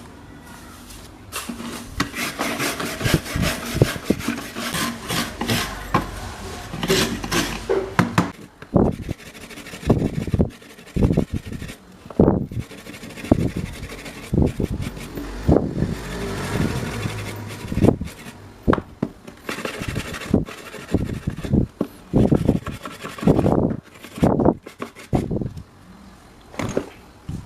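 Irregular scraping and rubbing strokes of hand tool work on the fan's parts, broken by sharp knocks.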